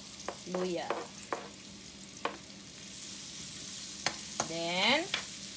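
Sliced garlic and ginger frying in hot oil in a metal pan, the sizzle growing louder about three seconds in. A metal spatula stirs them, clicking and scraping against the pan several times.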